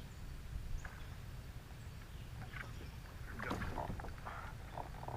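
Faint knocks and scrapes around a kayak over a low, steady rumble, growing busier in the second half.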